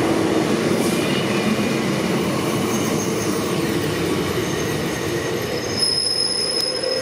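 Double-deck electric commuter train running steadily past along the platform, its wheels and running gear making a continuous rolling noise. A thin high-pitched squeal comes in about halfway through and grows stronger near the end.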